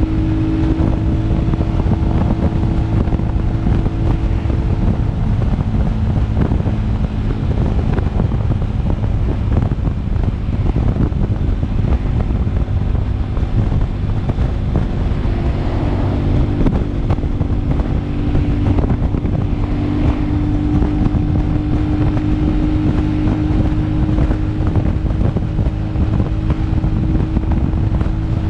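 Motorcycle engine running at steady cruising speed on the road, with wind buffeting the microphone. The engine note drops about five seconds in, as the throttle eases, and climbs back a few seconds later.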